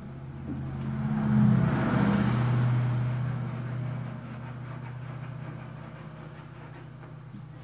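A motor sound swells up about a second in and fades away over the next few seconds, over a steady low hum.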